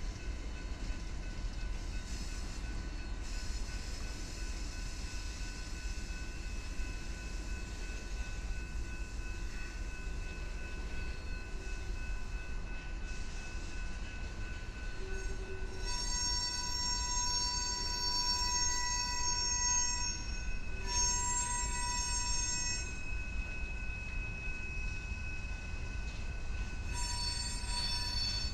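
A freight train of tank cars rolls past on a curve with a steady rumble. From about halfway through, high-pitched steel wheel squeal sets in, in several stretches of a few seconds each.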